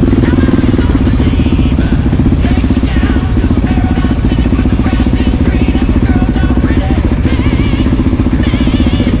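Motorcycle engine running steadily at low revs, a loud, even pulsing throb, with music faintly over it.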